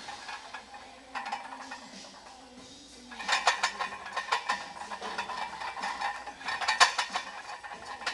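Metal weight plates and a loaded barbell clinking and rattling in two bursts of quick clinks, about three seconds in and again near seven seconds, as squat reps are done under 315 lb.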